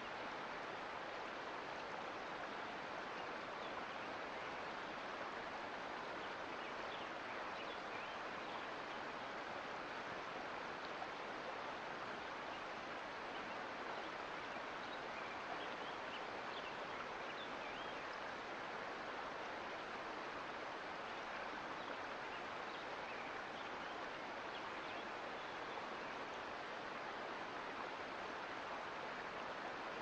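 Mountain creek flowing: a steady rush of water with faint, brief splashes over it.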